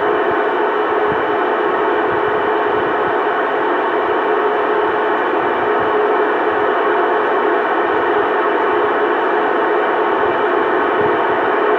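CB radio receiver putting out loud, steady static hiss with a faint steady tone running through it.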